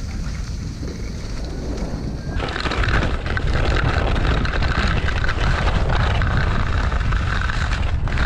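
Wind buffeting the camera microphone, a loud low rumble. About two and a half seconds in, a louder hiss joins it.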